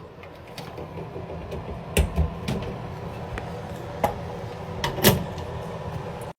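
A handful of sharp knocks and clacks, the loudest about two seconds in and about five seconds in, over a steady hum; the sound cuts off suddenly near the end.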